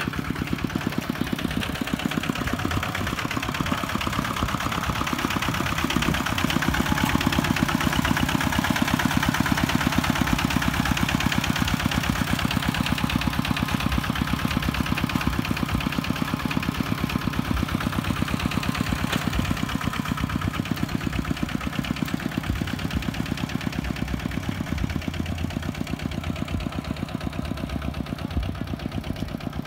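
A tractor's engine running steadily with a fast, even chugging, a little louder between about six and twelve seconds in.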